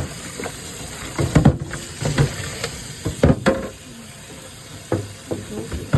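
Cleaning a refrigerator with a scrubber and hot water: a steady hiss with scattered knocks and clatters, loudest in two clusters about a second and a half and a little over three seconds in.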